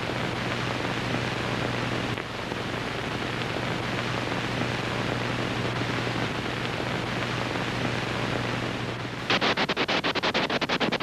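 Steady hiss of static with a low, steady hum. About nine seconds in it gives way to a louder, rapid, even clatter, the running sound of a film projector.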